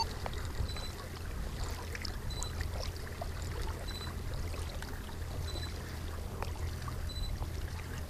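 Water trickling and lapping around a kayak on a lake, with small splashes and clicks over a steady low rumble. A faint short high beep repeats about every second and a half.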